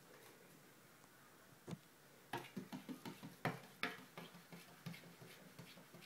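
A cat's paws batting at a glass window pane: a single tap, then from about two seconds in a quick, irregular run of taps, several a second, that thins out near the end.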